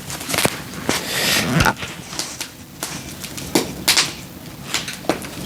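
Split firewood being handled: irregular sharp knocks and clacks of logs, with a short scraping rustle about a second in.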